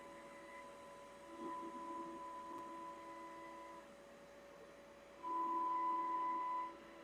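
CNC router spindle whining at a steady pitch as the bit carves mahogany. The whine swells about a second in, eases off, and swells again more loudly near the end.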